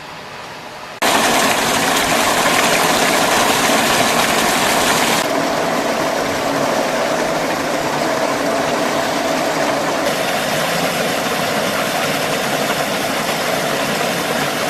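A machine's engine running steadily and loudly, coming in abruptly about a second in.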